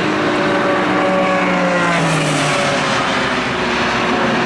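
Indy car engines (2.2-litre twin-turbo V6s) running, their note sliding slowly down in pitch.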